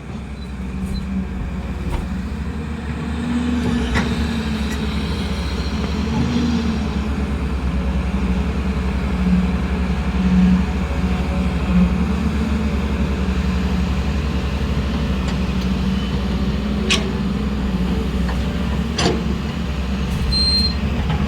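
An engine running steadily, its pitch swelling slightly now and then, with a few sharp clicks or knocks partway through.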